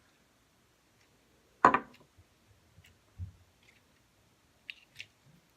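Putty being handled. There is one sharp, loud sound a little under two seconds in, a soft low thud about a second later, and two faint clicks near the end.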